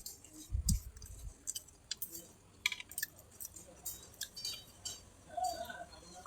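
Close-miked eating of a rice meal: chewing with many short wet mouth clicks and smacks, a brief low thump under a second in, and a light clink or two.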